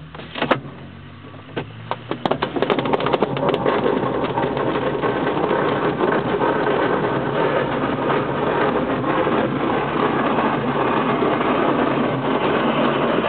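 ASK 21 glider on its takeoff roll, heard from the cockpit: a series of sharp knocks and rattles in the first few seconds, then a louder steady rushing noise that sets in about three seconds in and holds as it gathers speed.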